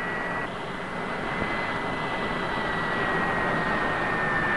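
Jet aircraft engine running throttled back on the landing approach: a steady rushing noise with a thin high whine that slowly falls in pitch.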